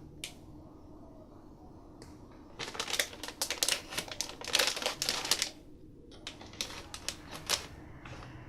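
Packaging being opened and handled: rapid crackling and rustling in two spells, the first about two and a half seconds in, the second shorter, near the end.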